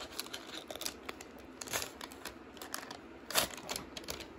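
Foil wrapper of a hockey card pack crinkling in the hands as it is peeled open and the cards are pulled out, in irregular crackles, the loudest a little over three seconds in.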